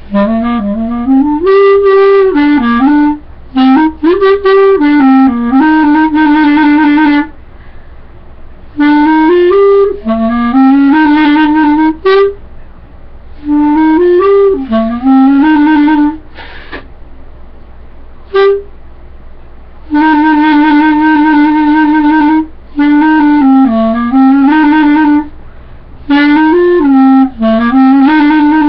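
Solo clarinet playing a melody in phrases of a few seconds each, with short breaks for breath between them, in its lower range; near the middle one note stands alone.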